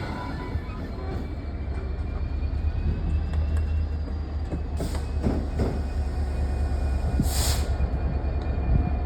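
Freight train of stone wagons moving slowly on the rails, a continuous low rumble with faint thin wheel squeals over it. A short hiss comes about seven seconds in.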